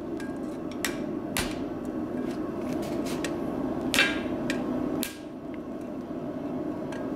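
Blacksmith's hand hammer striking a red-hot bar on the anvil: a few irregular ringing blows with lighter taps between, the loudest about four seconds in. A steady low hum runs underneath.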